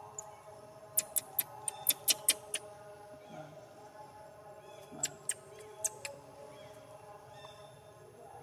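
Baby macaques giving short, high squeaks: a quick run of about eight around a second in, then three more about five seconds in.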